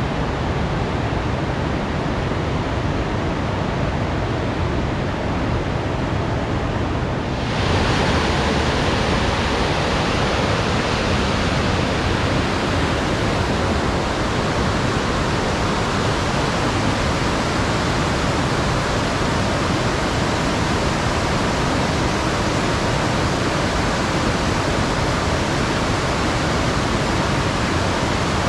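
Steady rush of a waterfall, a dense unbroken noise of falling water. About seven and a half seconds in it turns abruptly louder and hissier.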